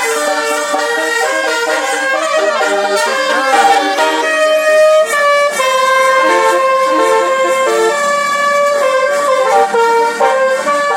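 Bus 'telolet basuri' musical air horn playing a melody of changing notes, with a swooping glide in pitch a few seconds in and long held notes after it.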